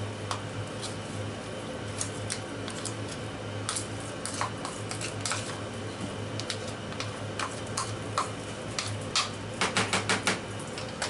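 Plastic spatula scraping and tapping against a plastic bowl to knock diced pepper out, giving scattered light clicks and a quick run of about six taps near the end, over a steady low hum.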